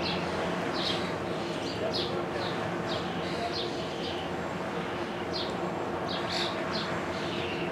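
Songbirds chirping: short, high, down-slurred notes repeated roughly every half second, over a steady low hum and background haze.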